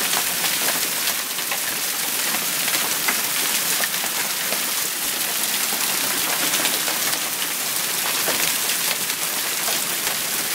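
Heavy downpour mixed with hailstones about half an inch across: a steady dense hiss of rain with many sharp ticks of hail striking.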